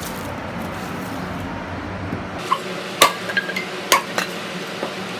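Short, sharp wooden knocks and clinks from firewood-splitting work, about six spread unevenly over the second half, the kind of clack dry split logs make when knocked together or set down.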